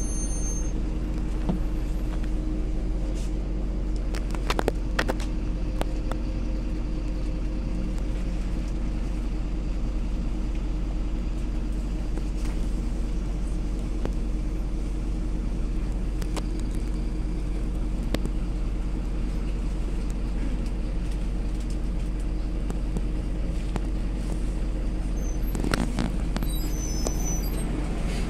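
Steady engine hum and low rumble of a MAZ-203 city bus, heard inside the passenger cabin, with a few brief rattles about four to five seconds in and again near the end.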